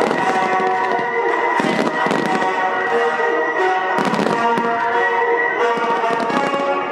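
Aerial firework shells bursting in a rapid barrage of bangs and crackling, over music with long held notes.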